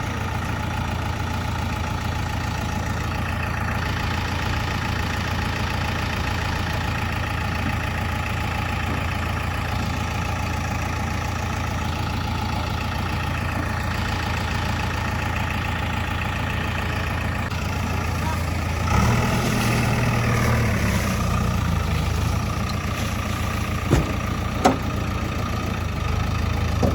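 Heavy diesel engine of a backhoe loader or truck idling steadily, picking up in load and loudness for a few seconds about two-thirds through. Two sharp knocks near the end.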